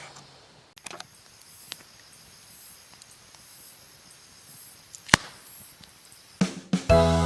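Wood campfire crackling with a few sharp pops, the loudest about five seconds in, over insects chirping in a high-pitched pulse about once a second. Chiming music begins near the end.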